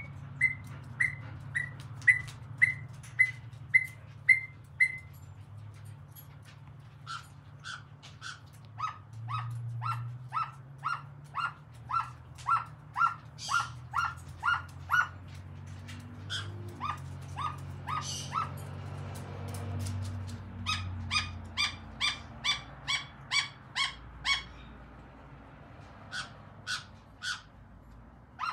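Caique parrot giving runs of short, sharp repeated calls, about two a second, in several bouts with short pauses between them. The first bout is higher-pitched than the later ones.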